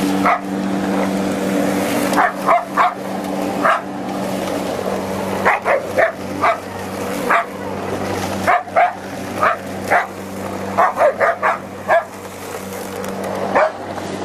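A dog barking over and over in short bursts, in irregular clusters, at a running lawn mower. The mower's steady engine hum runs underneath.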